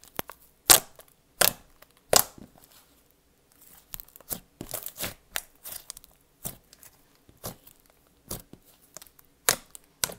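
Cloud cream slime squished and pressed by hand, giving a string of sharp bubble pops at irregular intervals, with a sizzly crackle between some of them.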